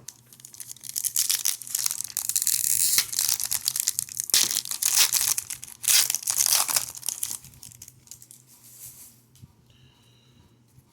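A sports-card pack wrapper being torn open and crinkled in the hands, a dense crackling rustle that dies down to light rustles in the last few seconds.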